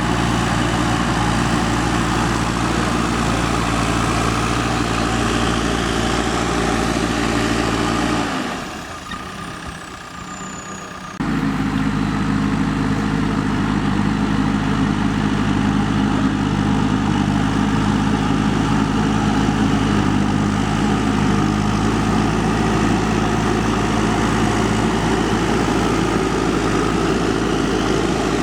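JCB 3DX backhoe loader's diesel engine running steadily. Its deep engine note drops away for about three seconds roughly a third of the way in, then comes back suddenly.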